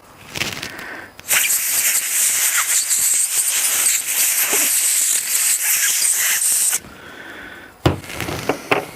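A long, steady hiss of a pressurized spray, starting about a second in and stopping abruptly after about five and a half seconds, as a clogged generator fuel part is blown or sprayed clean. Brief handling clicks and knocks come before and after it.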